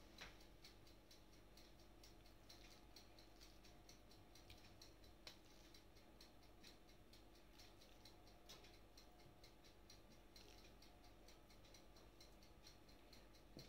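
Near silence: room tone with faint, even ticking and a few soft taps.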